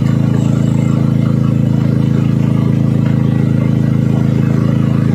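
An engine aboard the boat running steadily: a loud, even low hum that does not change.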